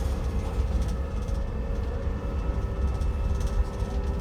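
Electric drive motor of an Alexander Dennis Enviro200EV bus whining while running, a set of steady tones over the low rumble of the moving bus. This is the motor sound that the rider finds weird.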